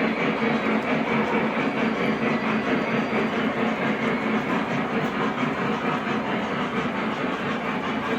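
O gauge model trains running on a three-rail layout: a steady rolling rumble of wheels on track with a fine rapid flutter.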